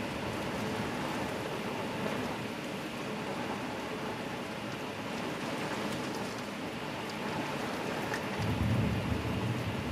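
Heavy downpour heard from inside a house: a steady hiss of rain. About eight seconds in, a low rumble of thunder swells up under it.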